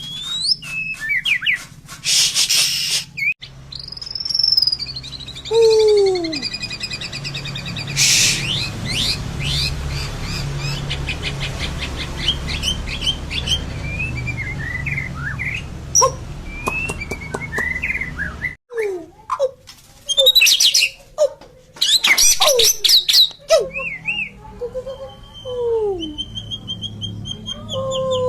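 White-rumped shama (murai batu) singing a long, varied song of clear whistles, fast trills, gliding notes and harsh buzzy bursts, with a brief pause a little past halfway. The song is in full flow ('gacor'), packed with learned imitations ('isian').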